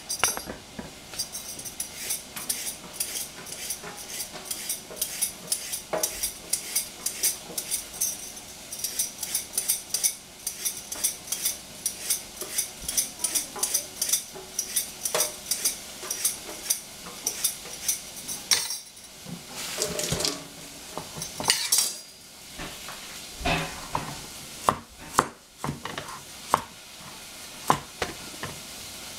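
Rapid, repeated scraping strokes of a vegetable peeler stripping a carrot, followed from about two-thirds of the way through by separate knocks of a Chinese cleaver cutting the carrot on a plastic cutting board.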